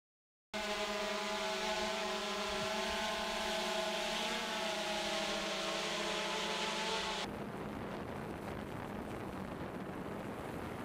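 DJI Phantom 2 quadcopter hovering, its propellers giving a steady, many-toned hum. About seven seconds in the sound cuts to a rougher rushing noise with only a faint hum left under it.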